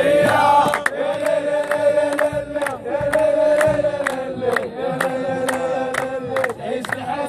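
Group of male football supporters chanting a song in unison, with sharp handclaps about twice a second.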